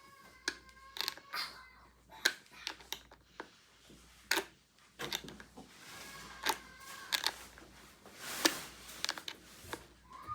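Irregular clicks, taps and small metallic knocks of hand tools tightening a screw and nut through a hockey skate boot, drawing a replacement rivet fastener tight.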